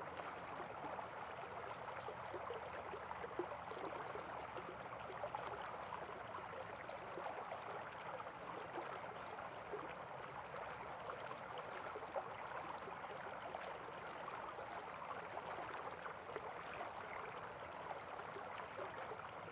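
Mississippi River water flowing steadily, an even rushing sound with no pauses or sharp knocks.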